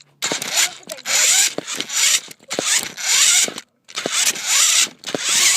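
A small RC car's electric motor and gears whirring in repeated short bursts of throttle, about five in a row with brief gaps between.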